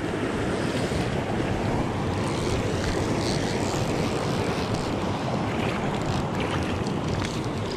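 Steady rush of water running over a shallow trout-stream riffle.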